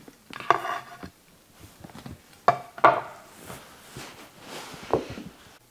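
Cut green banana pieces being placed into an aluminium sheet pan: a few separate light knocks and taps, some with a brief metallic ring.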